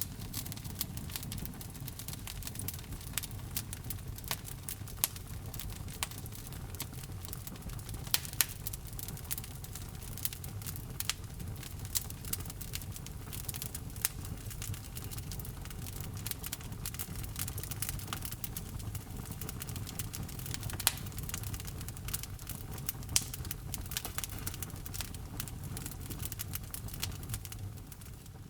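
Wood fire burning in a fireplace: irregular crackles and sharp pops over a low, steady rumble of the flames. The sound fades out near the end.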